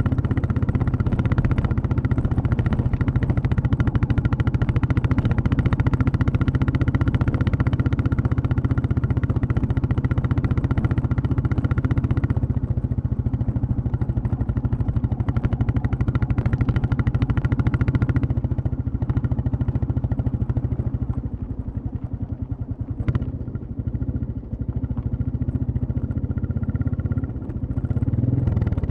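Royal Enfield Classic 350's single-cylinder engine and exhaust running while riding, a steady low beat of firing pulses. About two-thirds through the throttle eases off and the engine quietens, with a brief click, then it picks up again near the end.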